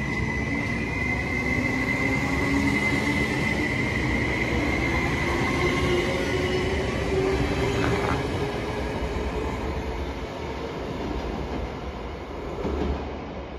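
Double-deck electric train pulling out along the platform: wheels running on the rails, with a motor whine that rises in pitch as it picks up speed. The sound eases off in the second half as it moves away.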